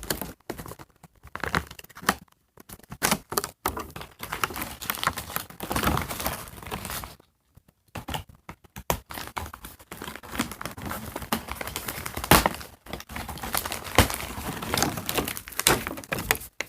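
Doll packaging being handled and opened by hand: irregular spells of rustling and tearing with a few sharp knocks, and a short pause about halfway through.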